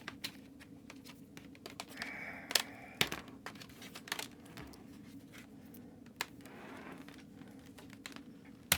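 Irregular plastic clicks and knocks from a cheap Lenovo membrane keyboard being handled, with a short scrape about two seconds in.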